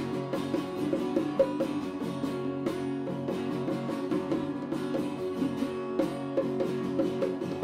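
Live acoustic guitar and bongos playing an instrumental passage: a run of picked guitar notes over light hand-drum taps.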